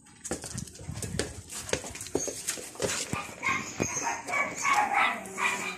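A playful black-and-white dog giving a run of short, high whines and yips, starting about halfway through, with scattered scuffs and knocks of movement before that.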